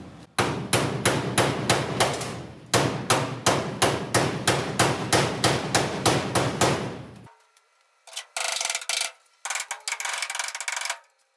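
Hammer striking the steel dash frame of a 1974 Ford F250 cab in a fast run of metal blows, about three to four a second with a short pause, knocking parts loose. Near the end, a ratcheting wrench clicks in short bursts as a bolt in the frame is turned.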